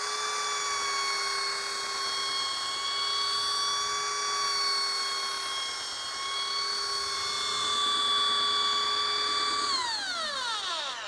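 Electric belt sander coming up to speed, then running with a steady high whine as it sands a wooden door. Near the end it is switched off and the whine falls in pitch as the belt winds down.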